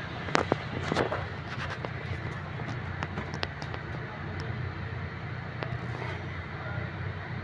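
Steady low hum and background noise, with a few sharp clicks and knocks in the first half, like parts being handled.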